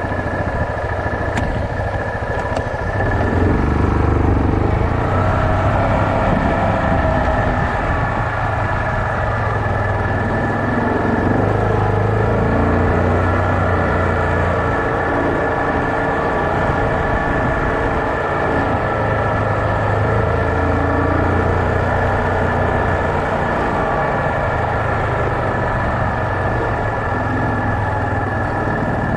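Yamaha Kodiak 450 ATV's single-cylinder four-stroke engine running as it rides along a dirt trail, its note rising and falling with the throttle and getting louder a few seconds in, with a steady high whine alongside.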